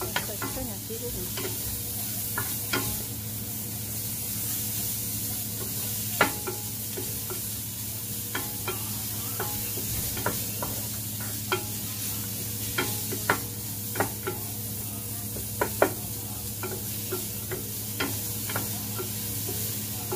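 Sliced shallots and aromatics sizzling in a copper-coloured square nonstick pan, with irregular clicks and scrapes of a wooden spatula stirring them against the pan. A steady low hum runs underneath.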